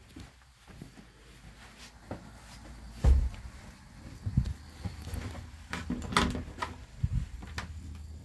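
A panelled interior door being handled as someone goes through the doorway: one heavy thump about three seconds in, then a run of lighter knocks and clicks.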